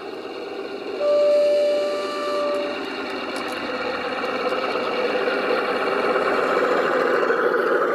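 Heljan O gauge model of the Class 53 diesel locomotive running past on garden railway track. One steady horn note sounds about a second in and is held for nearly two seconds. Under it is the locomotive's running noise, which grows louder as the model draws near and passes.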